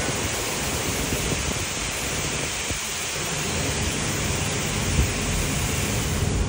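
Ryko Pulse touchless car wash gantry spraying water over a car, a steady hiss of spray, with a dull thump about five seconds in.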